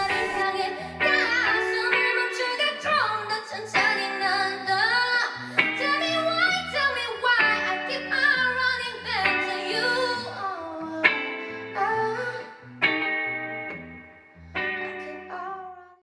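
A woman singing a song while accompanying herself on electric guitar, played live.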